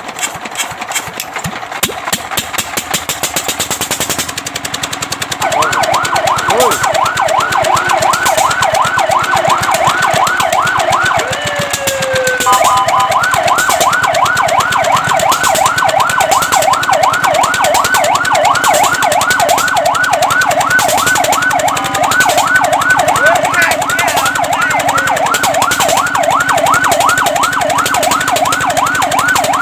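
Fire truck siren in a fast yelp, warbling up and down about five times a second, starting about five seconds in and switching pattern twice. Under it runs a rapid steady rattle.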